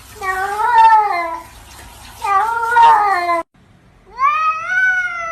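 Cat meowing: three long, drawn-out meows, the third one higher-pitched.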